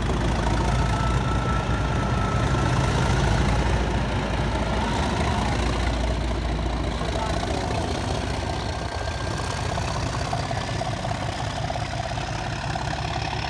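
Diesel locomotive's engine running with a deep, steady drone and a thin whine above it as the train passes and draws away. The sound is strongest in the first half and slowly fades toward the end.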